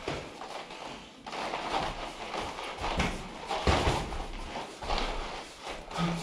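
Boxing gloves landing on a sparring partner's guard, a series of dull thuds, the loudest a little past the middle.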